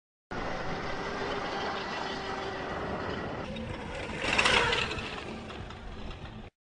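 Zero electric motorcycle running with a steady motor whine and tyre noise on dirt, swelling as it passes close, loudest about four and a half seconds in, then fading before cutting off suddenly.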